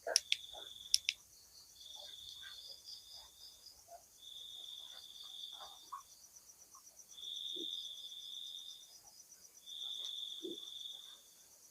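Night insects trilling in four separate high, buzzy bursts of about two seconds each, over a faint continuous chirring. A few sharp clicks sound in the first second.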